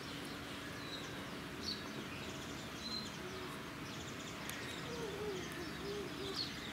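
Outdoor ambience with small birds giving short, high chirps every second or two, over a steady faint hum.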